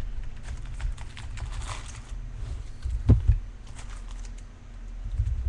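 Rustling and crinkling of trading-card packaging as a box of baseball card packs is handled and opened, over a low handling rumble. There are two sharp knocks about three seconds in.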